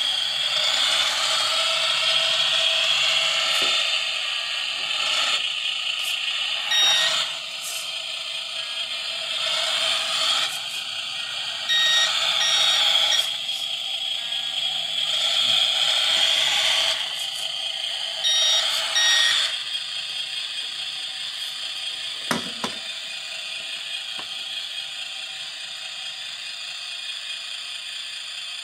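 Small electric motors of a Carson Linde H40D RC forklift whining as it is driven, with short electronic beeps in three bursts. The motor sound drops away about twenty seconds in, leaving a faint hum, and a single click comes a couple of seconds later.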